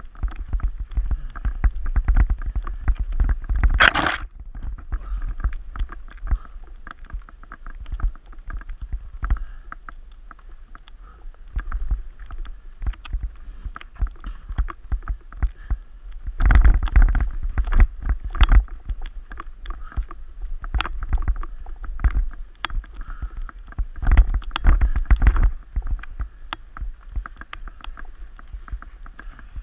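Mountain bike riding over a rough forest singletrack: a low rumble of tyres and wind with dense rattling and clicking from the bike over roots and stones. A brief loud rush of noise comes about four seconds in, and the rattling gets heavier for a few seconds around the middle and again near the end.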